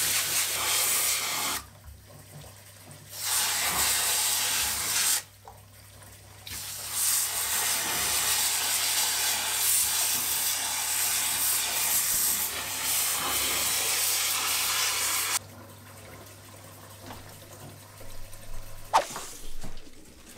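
Garden hose spray nozzle jetting water onto a plant's root ball to wash the old soil out of the roots. The spray comes in three long spells: it stops briefly twice and cuts off about fifteen seconds in. A single sharp click comes near the end.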